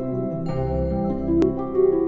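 Instrumental background music of held, ringing notes that change every half second or so, with a single short click about one and a half seconds in.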